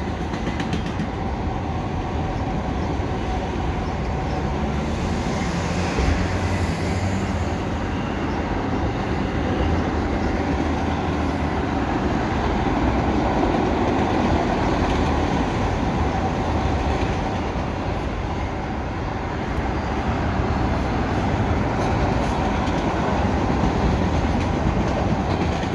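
Freight train's empty auto rack cars rolling past, a steady rumble of steel wheels on rail with some clickety-clack.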